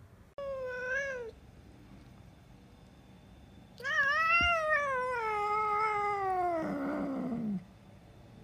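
A domestic cat's short meow about half a second in, then a tabby cat's long drawn-out yowl that rises and then slides down in pitch, turning rough and gravelly at its end.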